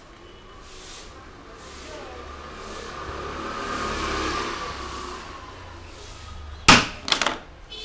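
A road vehicle passes, swelling to a peak and fading over a few seconds. Near the end comes one loud, sharp smack, followed by a quick flurry of smaller smacks.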